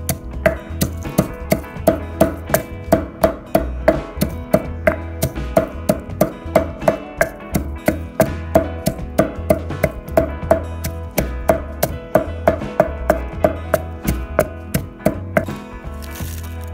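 Pestle pounding red chilies and garlic in a mortar, a steady run of knocks about two or three a second that stops near the end, with background music underneath.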